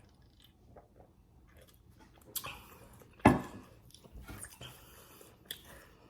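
Person eating close to the microphone, biting and chewing a Little Caesars breadstick, with a sharp bite about two and a half seconds in, a louder one just after three seconds, and softer chewing sounds after that.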